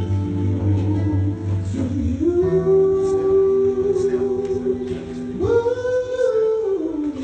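A song: a voice sings long held notes over steady bass notes. About five and a half seconds in it climbs to a higher note, then slides back down near the end.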